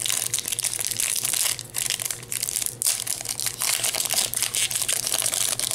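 Foil wrapper of a Yu-Gi-Oh! booster pack being crinkled and torn open by hand: a run of crackling rustles with short pauses between them.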